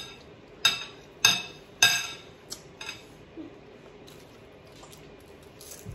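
Tableware clinking at a breakfast table: three sharp, ringing clinks in the first two seconds, then a few fainter ticks.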